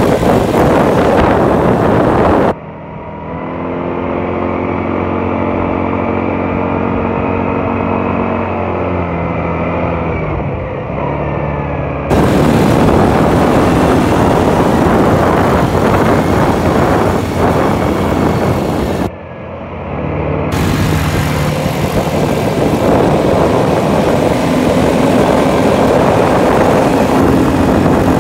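Quad bike engines running steadily while riding over sand, under heavy rushing wind noise on the microphone. The sound changes abruptly several times, the wind dropping away for stretches and leaving the engine tone clearer.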